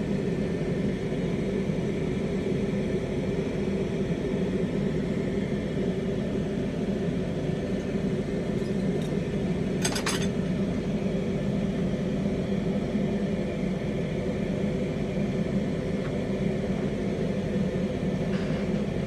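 Lampworking bench torch flame burning with a steady low rumble. About ten seconds in there is one short, ringing glassy clink.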